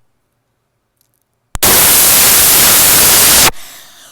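A loud, distorted rush of air blown straight into the microphone, starting about a second and a half in and lasting about two seconds before tailing off.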